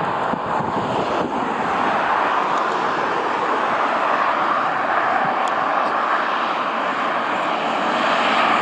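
Road traffic: steady tyre and engine noise from passing vehicles and an approaching MAN articulated truck, growing slowly louder toward the end as the truck nears.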